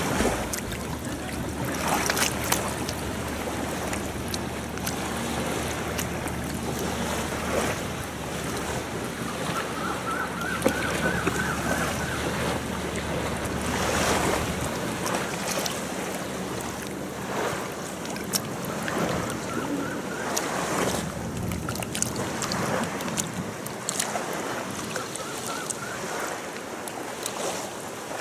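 Sea surf washing against the shore, with wind buffeting the microphone.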